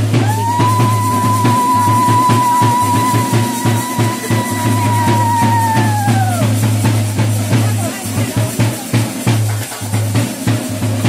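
A conch shell blown in one long, steady note for about six and a half seconds that sags in pitch as the breath runs out, over drums beating a steady rhythm; after the note, the drumming continues with voices.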